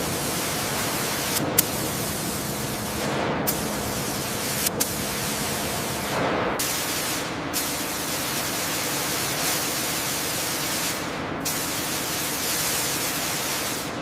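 A high-pressure spray hissing steadily, broken by several brief dropouts and a couple of faint clicks.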